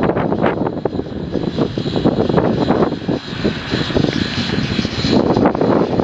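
NZR WAB-class steam tank locomotive working slowly under steam: a rapid, uneven run of exhaust beats with a steady hiss of steam, the beats easing off in the middle and picking up again near the end.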